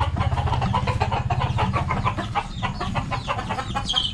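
A motorcycle engine running, fading away about halfway through, while chickens cluck, with a short high chirp near the end.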